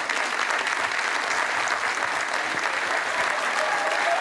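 A theatre audience applauding steadily, called for by the performer to welcome his stage assistant.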